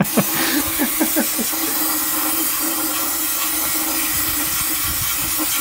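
Aerosol brake cleaner sprayed in one long, steady hiss into an open differential housing.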